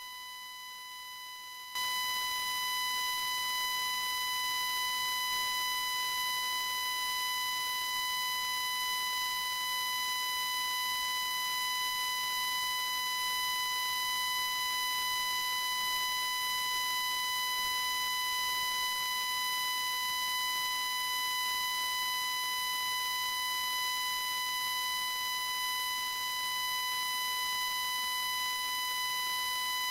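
Steady high-pitched feedback tone from a failed microphone, one unbroken pitch with overtones. It jumps louder about two seconds in and then holds level.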